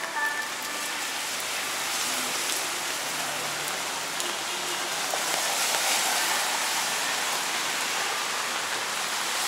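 Steady rain falling and splashing on wet pavement.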